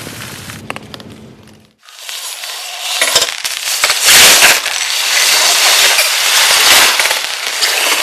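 Heavy rain pattering densely on a tent or tarp, a close crackle of many small drop impacts. It breaks off briefly about two seconds in and comes back louder from about three seconds on.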